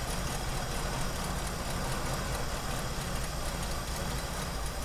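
Chevrolet 350 small-block V8 idling steadily, running again on a newly fitted fuel pump that replaced a failed one.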